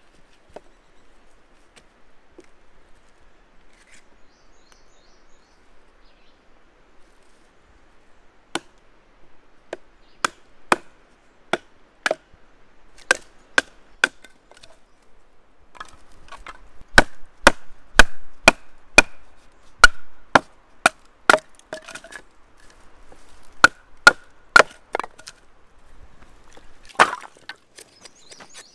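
Firewood being split by batoning: a wooden baton striking a knife driven into a log round, in a run of sharp knocks. They begin about eight seconds in, come faster, up to about two a second, in the middle, and end with a last flurry near the end.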